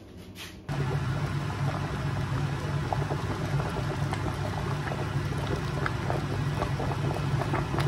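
Pot of water at a rolling boil with tomatoes blanching in it: a steady bubbling rumble with many small pops, starting suddenly about a second in.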